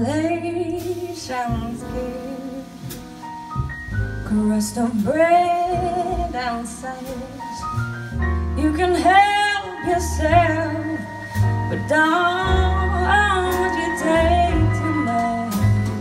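A woman singing a slow jazz ballad with held, wavering notes, backed by piano, upright bass and drums.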